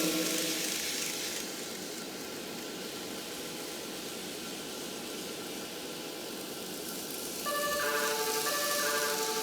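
Model-railway sound box playing E259 series Narita Express train sounds through its speaker: a steady rushing running noise, then about three-quarters of the way in a run of stepped electronic tones like a chime melody.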